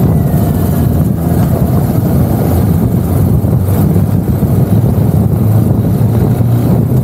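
Motorcycle engine running steadily as the bike rides slowly through traffic, heard from on the bike.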